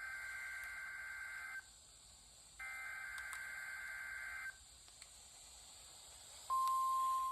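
NOAA Weather Radio test signal as received on a weather radio: two bursts of the SAME digital header, each a buzzy warble of high data tones about two seconds long with a second's gap between them. Near the end the steady 1050 Hz warning alarm tone comes on, louder than the bursts.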